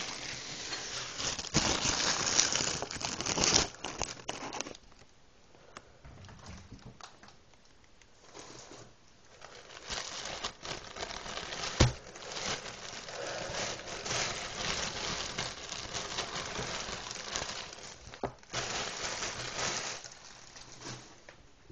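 Plastic bread bag crinkling as it is handled, loudest in the first few seconds and again in the second half, with a quieter spell between. A single sharp knock comes about twelve seconds in.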